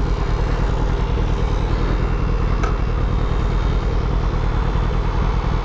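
Motorcycle under way: a steady, fluttering rumble of wind buffeting the microphone mixed with the engine.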